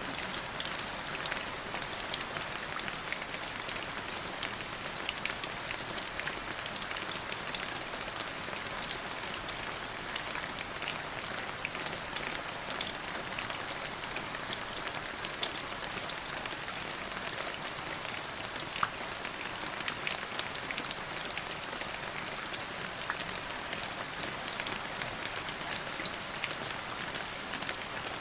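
Steady rain falling, a constant hiss dotted with many separate sharp drop ticks.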